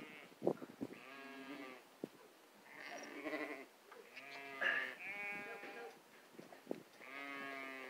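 Sheep bleating repeatedly: several long bleats, one after another, some overlapping.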